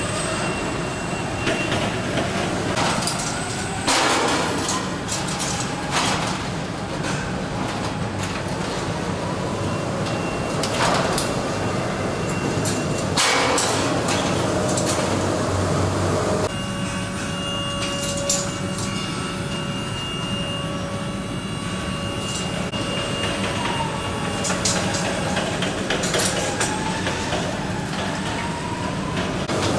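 Electric warehouse machinery running: an electric pallet stacker and an automated cheese-wheel handling machine. A steady hum is broken by several clunks and knocks in the first half. A held whine runs through the middle, and rising motor whines come near the end.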